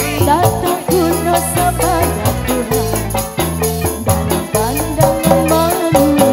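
Live dangdut band playing: a woman singing into a microphone over electric guitars, bass and drums, with a rattling shaker-like percussion keeping a steady rhythm.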